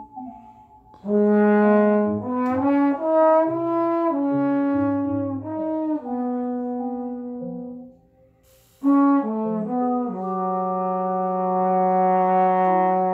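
Trombone improvising a line of separate notes that jump in pitch. It falls silent twice, about a second in and again near the middle, then ends on a long held low note.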